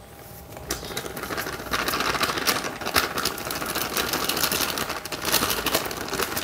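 Plastic bag of confectioners' sugar crinkling as it is opened and tipped, with sugar pouring into a plastic bowl: a dense run of small crackles starting about a second in.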